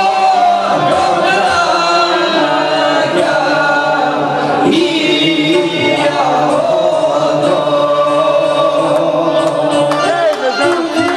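Live Bosnian izvorna folk music with singing, several voices at once holding long notes.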